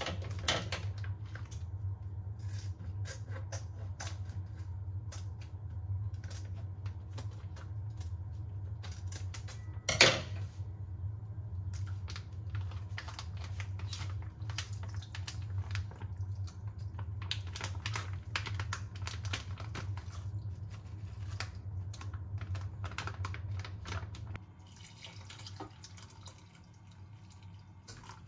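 Crinkling and crackling of a plastic seasoning pouch being squeezed out over a pot, over a steady low hum, with one sharp click about a third of the way through. Near the end the hum stops and water is poured into the pot from a jug.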